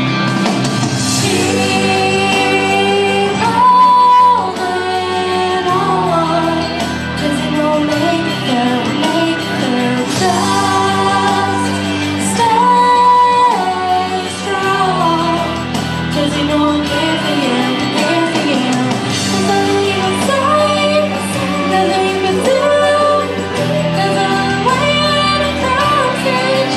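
A young woman singing a pop-style song into a handheld microphone over instrumental accompaniment, her melody moving in held and stepping notes.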